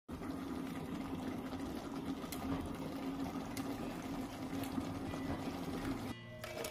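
Thick chicken curry bubbling in a pot on the stove, a steady noisy simmer over a low hum, with a few light clicks of the spoon against the pot. It cuts off abruptly about six seconds in.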